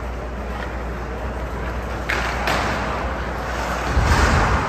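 Ice hockey play in a rink: a steady hiss of skating on ice, with two sharp clacks about two seconds in and a louder scraping rush with a low thud near the end.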